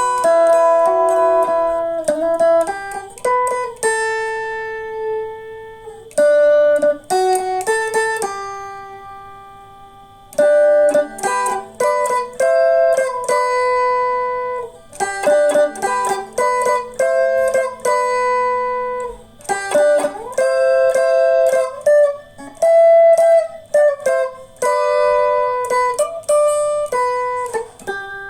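Guitar playing a slow instrumental melody: single plucked notes and chords that ring out and fade, with a couple of brief pauses where the notes die away.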